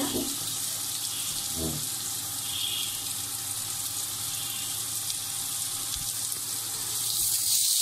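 Sliced onions frying in hot oil with garlic, dried chilli and cumin: a steady sizzling hiss that grows louder near the end.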